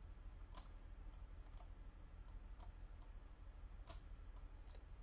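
Computer keyboard keys pressed slowly one at a time: sparse, irregular clicks about every half second, over a faint low hum.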